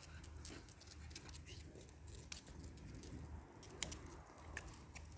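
Faint footsteps on a paved road, heard as a few soft, scattered ticks over a low steady rumble.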